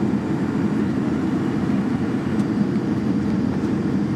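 Steady low rumble of an airliner's cabin after landing: engines and air flow running evenly, with a faint steady hum above it.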